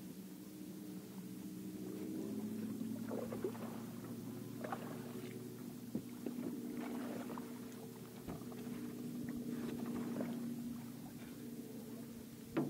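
Steady hum of a bow-mounted electric trolling motor, shifting up in pitch about two seconds in. A few short knocks and scrapes come over it while a largemouth bass is fought to the boat.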